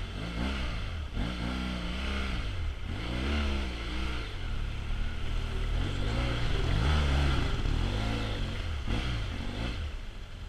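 BMW F800GS parallel-twin motorcycle engine under way on a rough dirt trail, its note rising and falling again and again every second or so as the throttle is worked. It is loudest about two-thirds of the way through.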